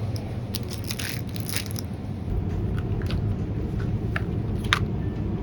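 Supermarket background noise: a steady low hum with scattered light clicks and crinkles of plastic food packaging being handled, the sharpest click near the end.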